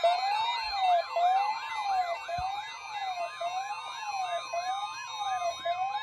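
Several NOAA weather alert radios sounding their alarms at once for a severe thunderstorm watch. A slow rising-and-falling siren tone cycles about once every 1.2 seconds, with faster warbling sweeps and a steady high tone layered over it.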